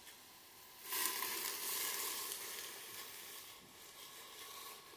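Chicken stock pouring from a stainless steel saucepan into a hot pot of sweated vegetables. It starts suddenly about a second in, is loudest at first, and eases off as the pour goes on.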